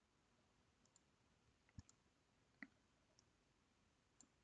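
A few faint, separate computer mouse clicks over near silence, about four spread across the few seconds.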